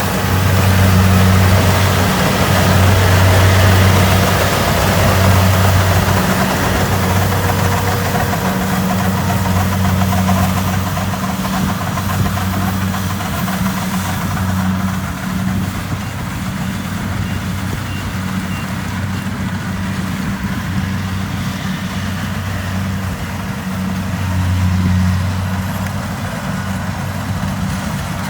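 Kubota DC70 Plus combine harvester's diesel engine running steadily, its low drone swelling and easing every second or two under a broad mechanical hiss. The hiss eases somewhat partway through.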